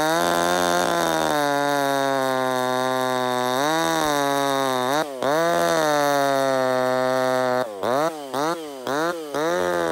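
Zenoah/Redmax G2500-clone 25cc two-stroke top-handle chainsaw, with an opened-up muffler, running near full throttle while cutting a log. The engine speed dips and picks back up about four and five seconds in, then several times in quick succession near the end.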